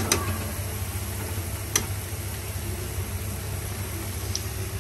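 Pakoras deep-frying in hot oil in a steel kadhai, a steady sizzle over a low hum, with a metal slotted spoon clicking against the pan at the start and again just under two seconds in as the pakoras are lifted out.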